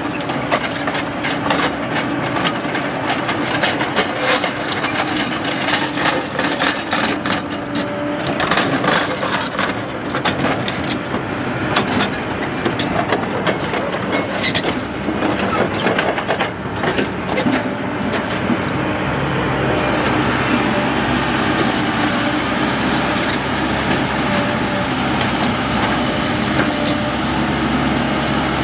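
Caterpillar 312C crawler excavator's diesel engine running as the machine travels, with the steel tracks clanking over roughly the first two-thirds. After that it settles into a steadier engine drone.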